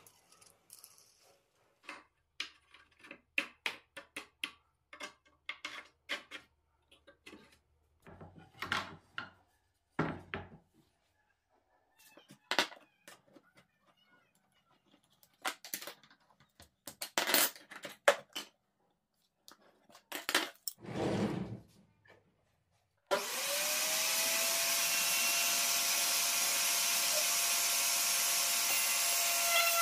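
Small clicks, taps and knocks of metal hardware and wooden parts being handled and set down on a table. About 23 s in, a table-mounted power tool motor switches on, spins up with a quickly rising whine and then runs steadily; this is the loudest sound.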